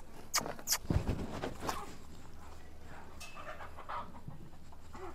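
Hoof pick scraping and knocking dirt and small stones out of a horse's hoof: a few sharp scrapes and a dull knock in the first two seconds, then fainter scraping.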